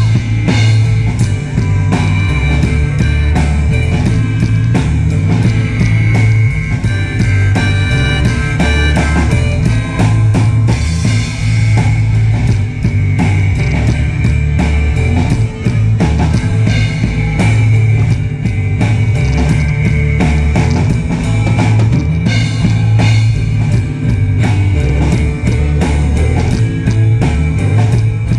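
Rock band playing loud: a drum kit keeping a steady beat under heavy bass notes and sustained higher instrument lines.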